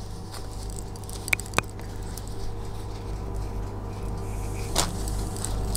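Thin yufka pastry sheet rustling and crinkling against baking paper as it is lifted and spread out by hand, with two sharp little clicks about a second and a half in and another near the end, over a steady low hum.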